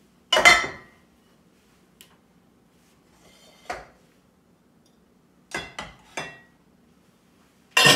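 Scattered knocks and clinks of kitchenware: a cast iron skillet set down on a stone countertop and a glass mixing bowl knocking against the skillet as cookie dough is pushed out of it. Loud knocks about half a second in and near the end, softer ones between.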